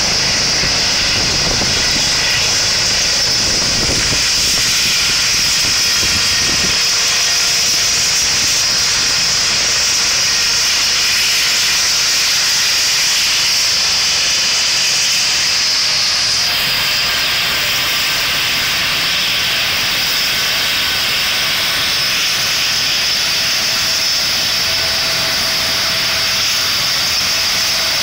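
Doctor helicopter on the helipad just after touchdown, rotor still turning: the low beat of the blades dies away in the first several seconds, leaving the steady high whine and hiss of its turbine engines running on the ground.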